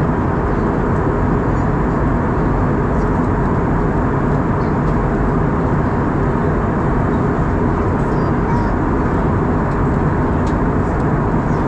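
Steady cabin noise of an Airbus A320 in flight, heard inside the cabin at a window seat: an even, low rush of engine and airflow that holds unchanged throughout.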